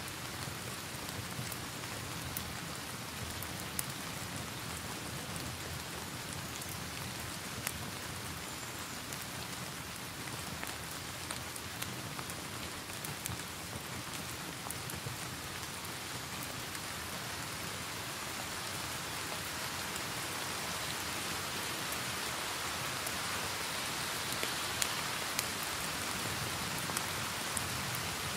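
Steady rain mixed with a fireplace fire: an even hiss of rainfall with scattered sharp crackles. The rain grows a little louder about two-thirds of the way through.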